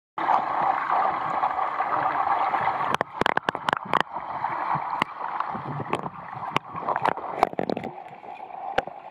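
Swimming pool heard underwater through a submerged camera: a steady muffled rushing noise that drops in level about three seconds in, followed by a scatter of sharp clicks and knocks from bubbles and moving swimmers.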